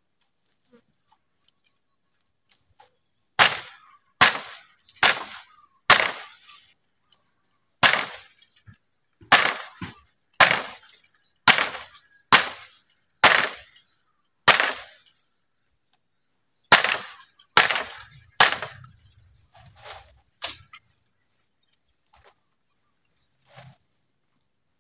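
Bamboo being chopped with a blade: a run of about fifteen sharp cracking blows, roughly one a second, with a short pause partway through, then stopping.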